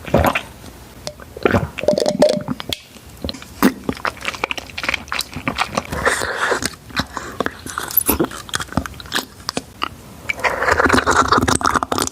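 A person chewing and biting boba tea's tapioca pearls close to the microphone: many quick, wet clicks, with two longer, denser noisy stretches, about six seconds in and near the end.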